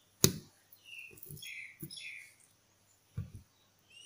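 Chef's knife cutting through ham onto a wooden cutting board: one sharp knock about a quarter second in, then a few softer taps. Small birds chirp in the background.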